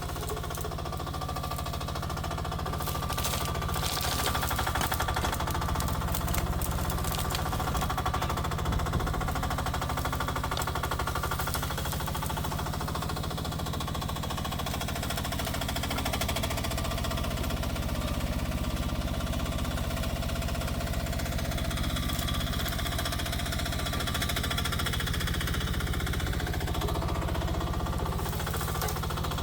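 Rippa R10 one-ton mini excavator running steadily, its small engine chugging under working load with hydraulic whines above it that shift in pitch now and then as the machine digs.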